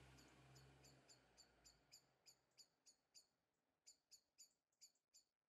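Near silence: room tone with a faint series of short high chirps repeating several times a second.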